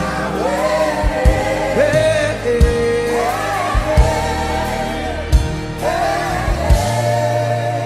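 Gospel worship music: voices singing long, gliding held notes without words over a steady drum beat.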